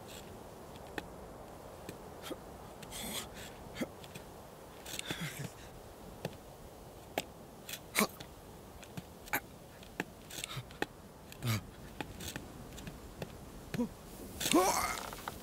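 A sheep's hooves clicking and scraping on rock as it shifts its footing, with a few short breaths, heard as scattered small clicks and brief rustles. A longer breathy sound comes near the end.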